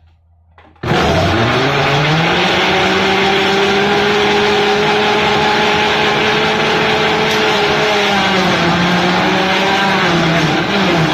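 Countertop blender switched on about a second in. Its motor spins up with a rising whine, then runs steadily as it chops banana and apple chunks in liquid, its pitch dipping slightly near the end as the load shifts.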